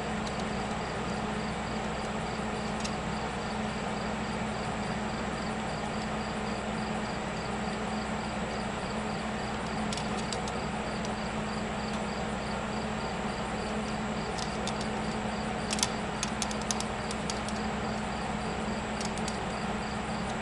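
MIG welder running with a steady mechanical hum and a faint regular ticking, with a few light clicks partway through and near the end.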